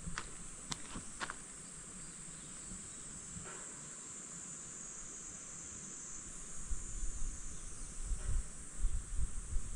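Cicadas droning steadily and high-pitched from the forest, with a few sharp clicks in the first second or so and low, gusty wind rumble on the microphone from about two-thirds of the way through.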